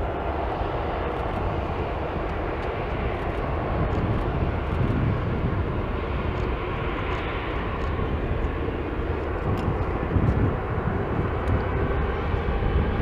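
Jet engine noise from an Airbus A321-211's CFM56 turbofans as the airliner rolls along the runway for takeoff. It is a steady, dense rushing sound with a deep rumble underneath, growing a little louder about a third of the way in and rumbling more strongly near the end.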